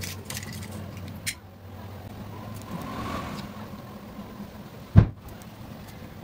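Hands working a pocket lighter at a fishing rod's guide: a few small clicks, then a faint hiss with a thin tone in the middle while the flame burns. A loud, short low thump about five seconds in, like the rod or hand knocking the microphone, with a low hum under the first seconds.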